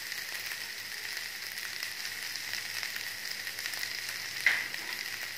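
Ginger-garlic-green-chilli paste with cumin, curry leaves and crushed coriander sizzling in hot oil in a nonstick pan: a steady crackling hiss of frying, with one sharper pop about four and a half seconds in.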